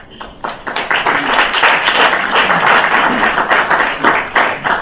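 Audience applauding, swelling over the first second, holding steady, then thinning out near the end.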